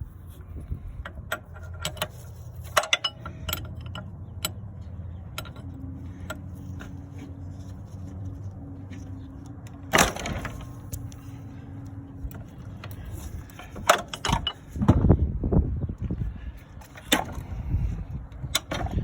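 Scattered metallic clinks and knocks of tools and parts being handled over a low steady hum, with a sharp knock about ten seconds in and a burst of clatter near the end.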